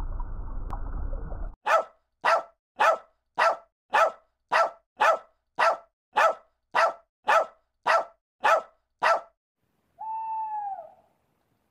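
A low rushing noise cuts off after about a second and a half. Then a puppy barks fourteen times in an even rhythm of about two barks a second, followed by a single owl call that rises and then falls in pitch near the end.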